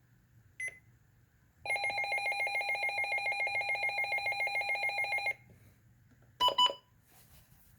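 Midland WR300 weather alert radio sounding its alert siren: a rapidly pulsing, multi-pitch electronic alarm tone of about seven pulses a second, lasting about three and a half seconds. It is preceded by one short beep and followed by two quick short beeps.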